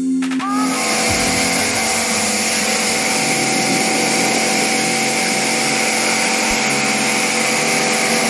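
Pressure washer starting about half a second in and then running steadily, its water jet hissing onto an air-conditioner evaporator coil to rinse off the cleaning-chemical foam.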